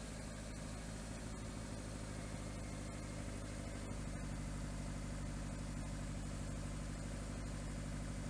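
Toyota Corolla engine idling steadily, with the power steering pump quiet after a stab of the throttle cleared its noise.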